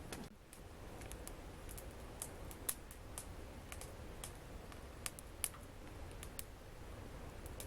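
Wood fire burning in a fireplace, crackling with irregular sharp pops and snaps over a low steady rumble. The two loudest pops come about a third of the way in and past the middle.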